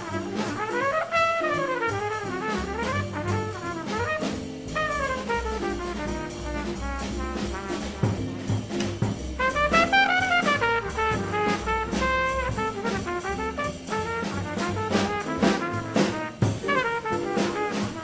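Small-group bebop jazz recording: a horn plays fast, winding runs that climb and fall, over double bass and drums.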